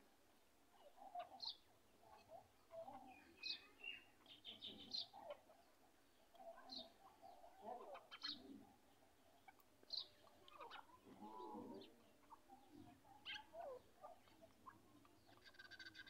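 Grey francolins giving faint, scattered short chirps and soft calls: many brief notes at irregular intervals, with one longer, lower warbling call about two-thirds of the way through.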